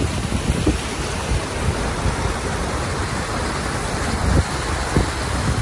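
Car driving through deep floodwater: a steady rush of water washing against the body and a low rumble, with a couple of brief low thumps near the end.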